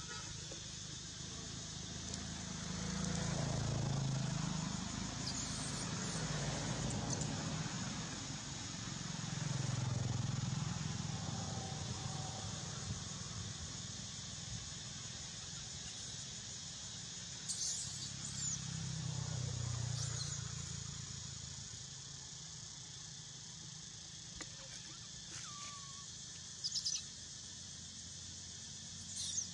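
Outdoor ambience: a steady high insect drone, with three low rumbles that swell and fade like passing traffic, and a few short high chirps.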